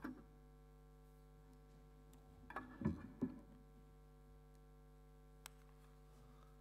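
Laptop being handled and set down on a lectern close to a microphone: a cluster of knocks about three seconds in and a single sharp click later, over a steady electrical hum from the sound system.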